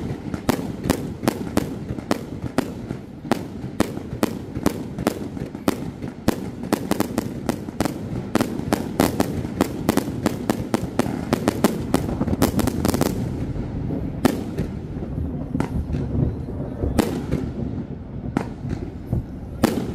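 Fireworks display: a rapid run of sharp bangs and crackles, several a second, over a steady low rumble. The bangs come thickest in the middle and thin out in the last third.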